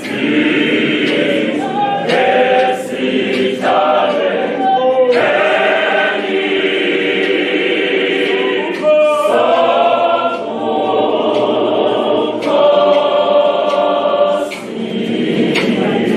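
Zion church choir of men's and women's voices singing a hymn a cappella in harmony, phrase by phrase with short breaks between lines.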